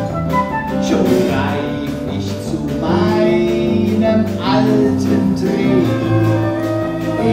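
Music from a stage musical's score: a show tune played by several instruments with a steady beat.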